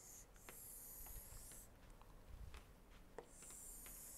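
Near silence with faint scratching and light ticks from a stylus drawing on a tablet screen.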